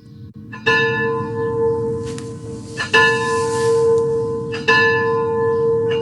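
A bell tolling on one unchanging note: three strokes about two seconds apart, each ringing on into the next.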